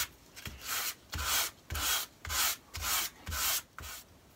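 Hand sanding with a small scrap of sandpaper: about seven slow back-and-forth scratchy strokes, roughly two a second, roughing up leather so contact adhesive will grip. The strokes stop shortly before the end.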